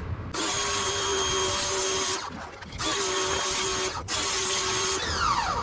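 Harbor Freight electric pressure washer running in three bursts of motor whine and spray hiss, with brief breaks between them. Near the end the trigger is let off and the pump winds down in a falling whine, the sound the owner likens to a dying seal.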